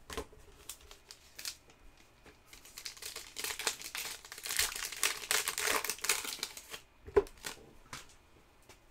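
A trading-card pack's foil wrapper being torn open and crinkled by hand, the crinkling densest in the middle, with a sharp tap a little after seven seconds in.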